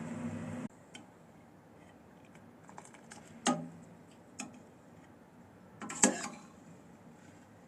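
Kitchenware clinking and knocking: a steady low hum cuts off suddenly under a second in, then three sharp clinks with a short ring, the loudest near the end, with small ticks between.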